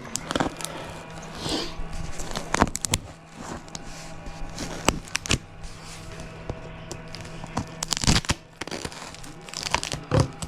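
A cardboard box being opened by hand: tearing, crinkling and crackling of tape and packaging, with sharp clicks and knocks scattered throughout, over background music.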